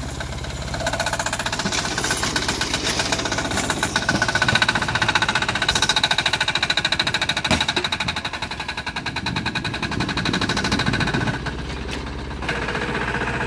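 Small single-cylinder air-cooled diesel engine (6 hp) on a garden tractor, running with a rapid, even pulsing beat. It grows louder about a second in, as when working under load, and drops back to a quieter, steadier run near the end.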